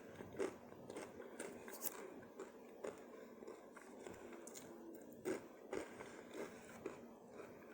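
Close-up mouth sounds of a person chewing food, with soft smacks and clicks at irregular intervals.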